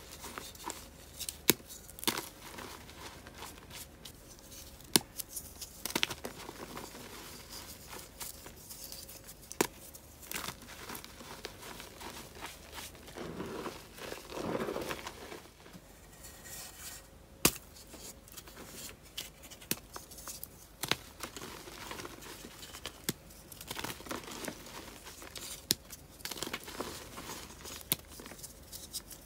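Reformed gym chalk being crushed by hand in a bed of chalk powder: crisp crunching and crumbling with sharp snaps scattered throughout, and a fuller powdery squeeze about halfway through.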